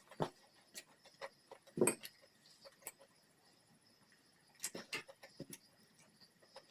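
A person eating: scattered wet chewing clicks and lip smacks, the loudest about two seconds in and a quick cluster of them near five seconds.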